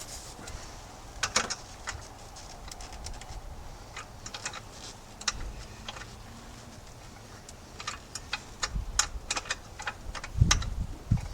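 Scattered small clicks and taps of hand tools and metal parts being handled while working on a motorcycle, with a dull knock near the end.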